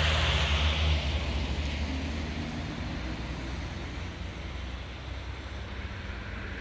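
Vehicle noise: a steady rush with a low hum, loudest at first and easing off over the first few seconds.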